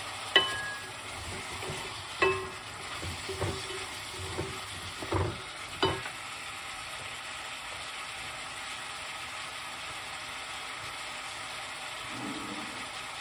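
Sliced peppers, tomatoes and onion sizzling in an aluminium pot, with a wooden spoon stirring them. The spoon knocks against the pot several times in the first six seconds, each knock ringing briefly, then only the steady sizzle is left.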